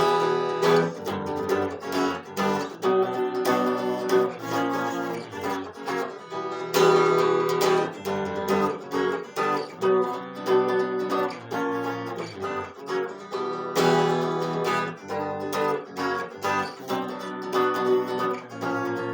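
Electric guitar strumming chords through an instrumental break with no singing, in a steady rhythm of strokes.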